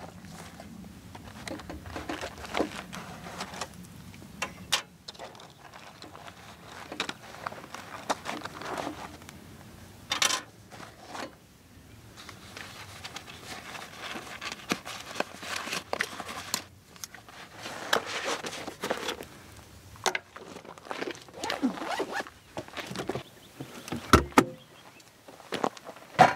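Zipper of a fabric camp-kitchen organizer bag being worked, with the fabric rustling and utensils and gear clicking and knocking as they are handled and set down on a wooden tailgate table; the sharpest knock comes near the end.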